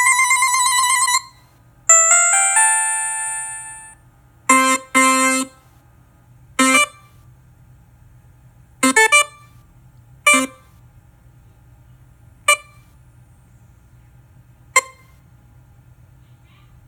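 Smart speaker's synthesized alert and notification sound effects, played one after another with gaps between them. A warbling ring cuts off about a second in, then a chime rings and fades over about two seconds. After that come a pair of short beeps, a few single and doubled blips, and two brief ticks near the end.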